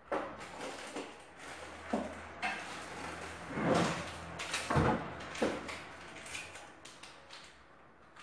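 Kitchen handling noises: a string of knocks, clatters and rustles of things being moved, the loudest a dull thump a little under five seconds in, with a low hum through the first five seconds.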